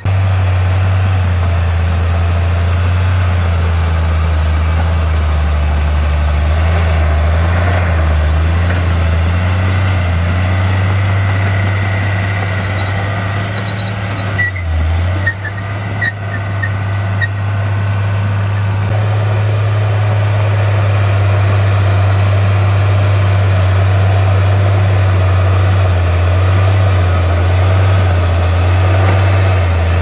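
Komatsu D51P crawler bulldozer's diesel engine running steadily under load as it pushes soil. A few short metallic clicks come about halfway through, and the engine note gets a little louder in the last third.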